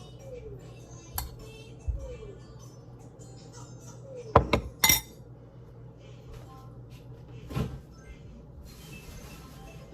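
Dishes, glass and cutlery clinking in a few separate knocks, the loudest cluster about four and a half seconds in, over quiet background music.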